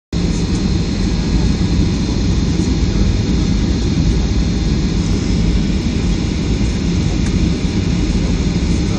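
Cabin noise inside a Boeing 737-500 airliner on its landing approach: the steady rumble of its CFM56 jet engines and the rush of air past the fuselage, with a faint high whine above it.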